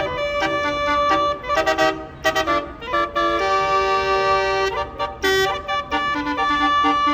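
A bus's basuri telolet horn, a multi-note melody air horn, playing a tune of quick short notes with one long held chord about halfway through.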